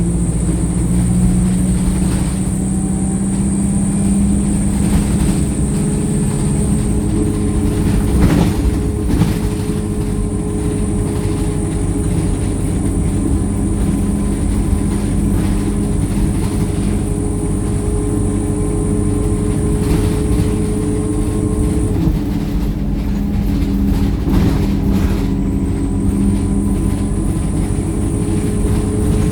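Wright StreetLite single-deck bus under way, heard from on board: a steady engine drone with a high whine over it. The whine drops out about two-thirds of the way through and comes back, and there are a few sharp knocks.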